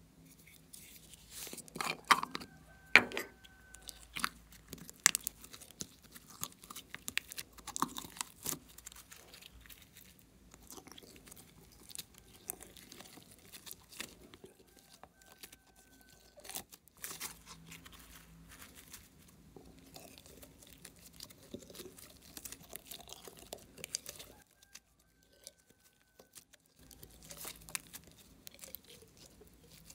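Thick slime being pushed out through the neck of a plastic egg-shaped container with the fingers, making many sticky crackling clicks. A few sharper clicks stand out about two to three seconds in.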